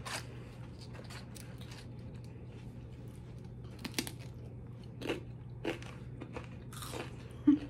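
Tortilla chips being bitten and chewed: a handful of scattered crisp crunches over a faint steady hum.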